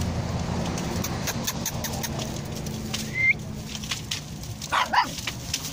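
Black puppies play-fighting: a short high squeal about three seconds in and two quick yaps near the end, over scattered small clicks.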